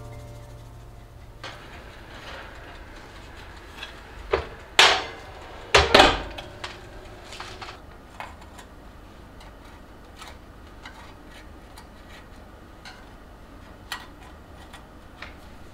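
Light clicks and scrapes of a thin metal pick prising baked madeleines out of a metal madeleine tin on a wire cooling rack. A cluster of sharp knocks comes about five to six seconds in and is the loudest sound.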